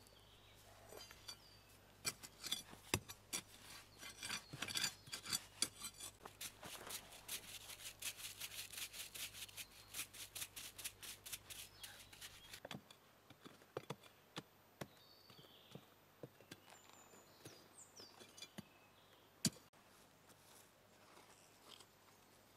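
Faint scraping and crunching of soil, wood chips and roots being dug and pulled away from the base of a pine stump by hand: a dense run of short scratchy scrapes that thins out to scattered clicks about halfway through, with one sharp knock near the end.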